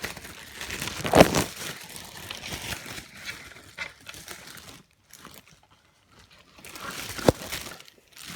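Packaging crinkling and rustling as new speakers are handled and unwrapped, with a sharp knock about a second in and another near the end, and a short quiet stretch in the middle.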